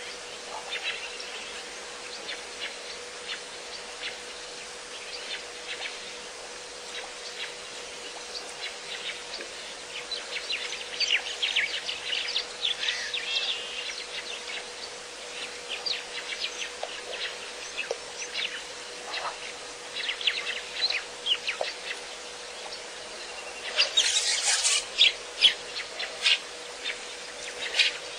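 Many small birds chirping and calling in short, high notes, busiest about ten to fourteen seconds in. A louder, harsher burst of noise lasts about a second near the end, and a faint steady hum runs underneath.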